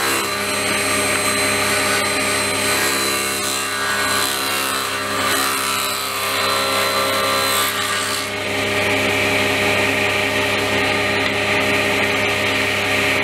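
Table saw running steadily, its blade cutting through a piece of wood fed with a push block, with a hissing cutting noise over the motor hum. About eight seconds in the cut ends and the blade spins on freely without load.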